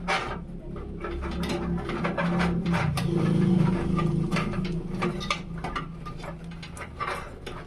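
A small motor whirring steadily, loudest about halfway through, amid many quick clicks and knocks of hard parts being handled.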